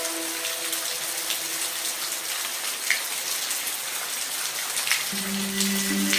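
Steady rain: an even hiss with scattered single drops ticking sharply. Soft held musical tones lie under it, fading away near the start, and a new, lower chord comes in about five seconds in.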